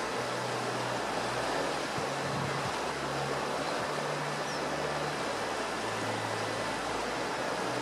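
Steady rushing of a river running high and fast in flood, with a low, uneven rumble underneath.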